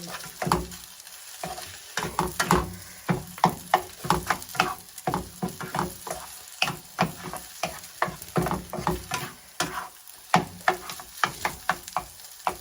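Fried rice and egg sizzling in oil in a pan while being stirred and mixed, with frequent sharp knocks and scrapes of the utensil against the pan, several a second.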